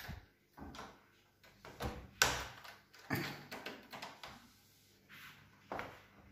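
Irregular soft knocks and thumps of movement, about eight in all, the loudest about two seconds in.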